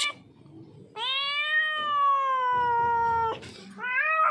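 A hungry, distressed street cat yowling: one long drawn-out meow of about two seconds that rises and then slowly falls in pitch, followed near the end by another that begins rising.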